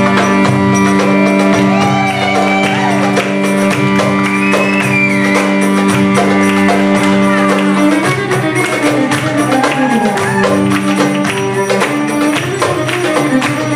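Live band music: an electric violin plays a sliding melody over a held drone, with steady hand-percussion strokes; the drone shifts pitch about eight seconds in.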